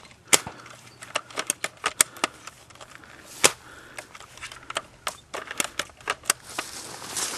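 Airsoft guns giving irregular sharp clicks and snaps, about twenty over several seconds, some loud and close and others faint.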